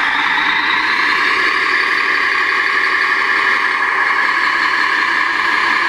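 An RC King Hauler truck's simulated diesel engine sound runs steadily while the truck rolls slowly forward.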